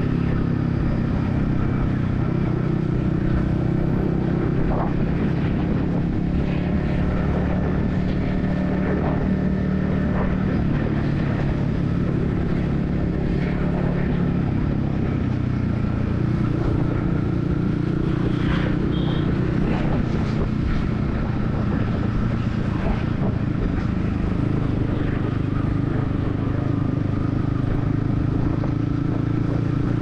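Yamaha XSR155's single-cylinder engine running at a fairly steady pace while riding in city traffic, heard from the rider's helmet, with a little change in engine pitch along the way. Surrounding traffic noise runs underneath.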